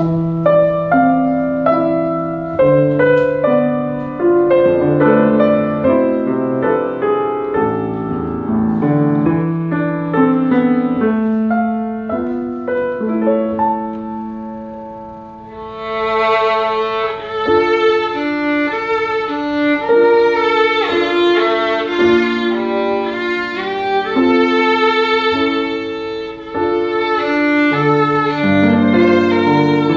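Violin playing a melody with piano accompaniment, starting abruptly at the beginning. From about halfway the violin sounds brighter and fuller, with clear vibrato on its held notes.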